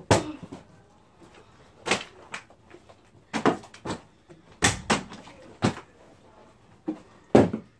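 Plastic water bottle, partly filled with water, being flipped and hitting the floor: a string of about ten sharp, irregularly spaced knocks.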